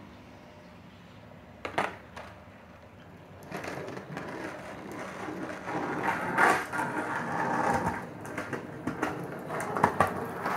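Skateboard wheels rolling over pavement and concrete, a rough rumble that grows louder as the board comes closer, ending in a few sharp clacks. A single sharp click comes about two seconds in.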